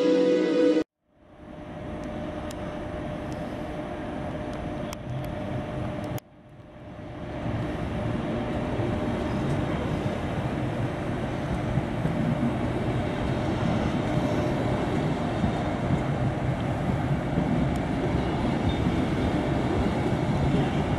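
Train of n-Wagen passenger coaches moving along the platform, giving a steady rolling rumble with a faint steady hum and a few faint high clicks. The sound fades in about a second in, breaks off at about six seconds, then fades back in and holds steady.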